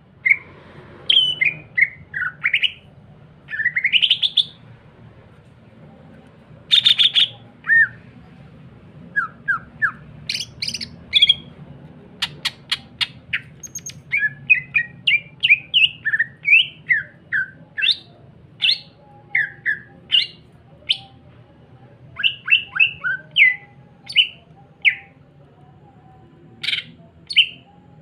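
Male green leafbird (cucak ijo) in full song: a busy string of short chirps and whistled notes sweeping up and down, with a quick run of sharp ticks about twelve seconds in. This is the energetic 'gacor' singing used as a lure to set other cucak ijo singing.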